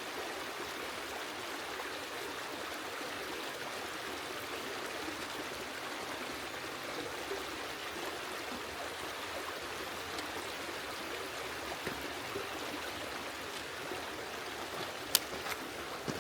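Creek water running steadily over rocks, with a couple of sharp clicks near the end.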